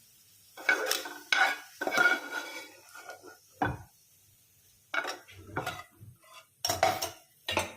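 A metal utensil scraping and clanking against a pan and a plate as fried onions are scooped out onto the plate: about eight irregular knocks and scrapes with short pauses between them.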